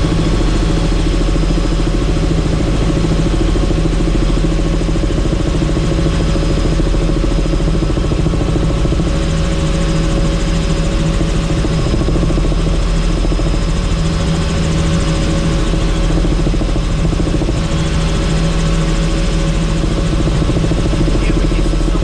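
Helicopter in steady flight heard from inside the cabin with the doors off: a constant drone of rotor and engine under a rush of wind noise.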